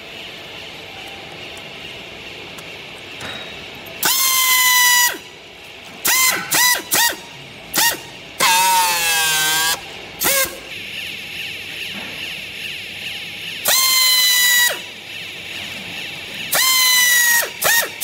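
Pneumatic strapping tool tensioning and sealing green plastic strap around a compressed textile bale: its air motor whines in short bursts of a steady high tone, some about a second long and others shorter, with one wavering burst near the middle, each dropping slightly in pitch as it stops.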